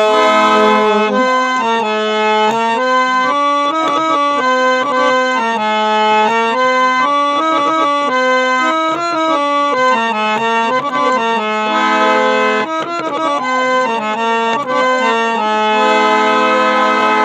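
Instrumental interlude of a Sindhi folk song: a free-reed keyboard instrument plays a melody in held, stepping notes, with no singing.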